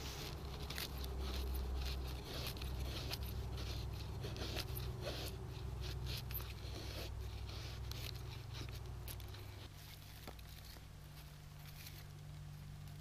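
Knife blade shaving thin curls off a split stick of dry wood, a quick run of scraping strokes, carving tinder shavings for a campfire. The strokes stop about ten seconds in, leaving a low steady rumble and a few faint ticks.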